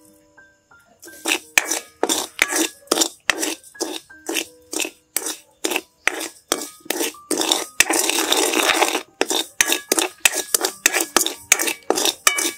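Metal spatula scraping and clinking against an iron wok, stirring dry sugar crystals as they heat. The strokes come about two to three a second, with one longer continuous scrape partway through.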